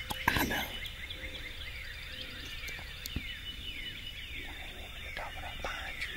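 Dawn chorus of songbirds: many quick, overlapping descending chirps and a steady high trill. A brief, loud burst of noise comes about half a second in.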